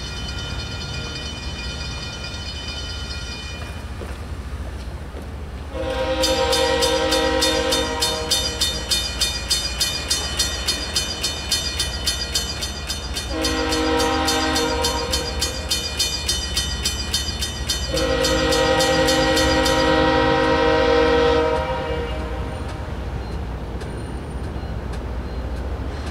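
A diesel locomotive's air horn sounding three long blasts for a grade crossing, with a crossing bell ringing rapidly at about three strikes a second under the first two-thirds of it. A fainter, higher chord fades out a few seconds in, and a steady low rumble runs underneath.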